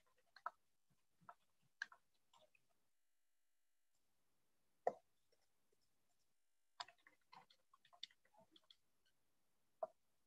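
Near silence broken by scattered faint clicks and taps, irregular and in small clusters, with one louder knock about five seconds in and a quick run of clicks toward the end.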